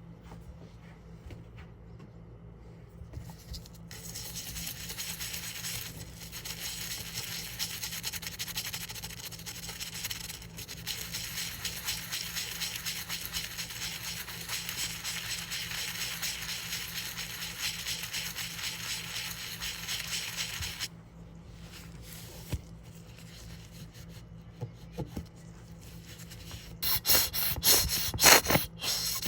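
A 1960 penny being rubbed and scrubbed during cleaning: a steady stretch of close rubbing that stops about two-thirds of the way through. Several sharp knocks and clacks follow near the end.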